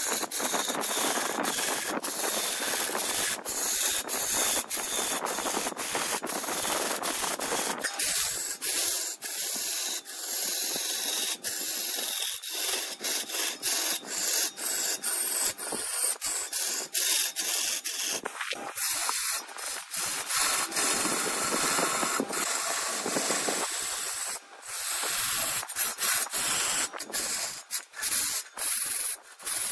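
A tool or abrasive held against a wooden workpiece spinning on a wood lathe, a steady hissing scrape broken by many short gaps; the deeper part of the noise falls away about eight seconds in.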